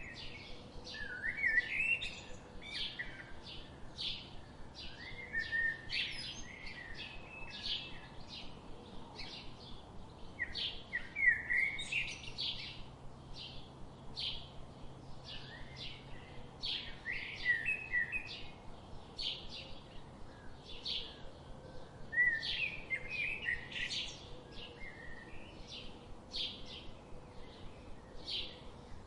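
Songbirds chirping: a steady series of short, high chirps about three a second, with a lower warbling phrase breaking in every five or six seconds.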